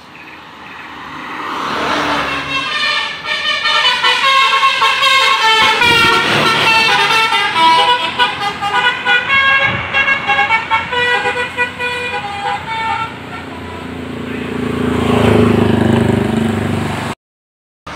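Indonesian tour bus's Basuri "telolet" musical horn playing a quick melody of short, stepping notes for about ten seconds. Then a low rumble swells and fades as a bus passes, and the sound cuts off abruptly near the end.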